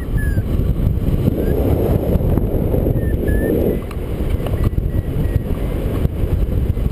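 Wind rushing over the microphone of a paraglider's camera in flight, a steady loud rush.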